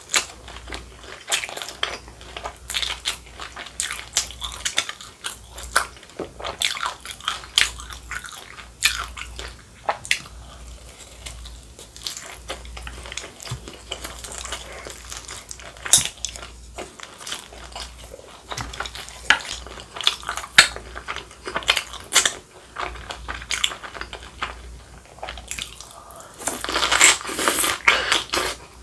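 Eating sounds: chewing and crunching of a deep-fried dumpling and kimchi, with sharp clicks of chopsticks on the dishes. Near the end comes a loud, dense crunch as a bite of stuffed cucumber kimchi (oi-sobagi) is taken.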